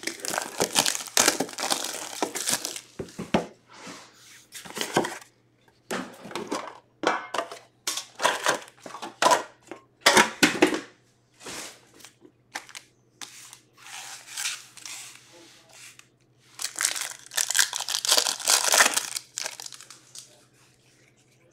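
Packs of hockey cards from a Series One tin being opened by hand: wrappers crinkling and tearing in irregular bursts, busiest at the start and again near the end.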